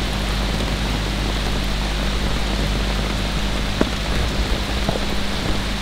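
Steady rain falling, with a low steady hum beneath it and a couple of faint ticks about four and five seconds in.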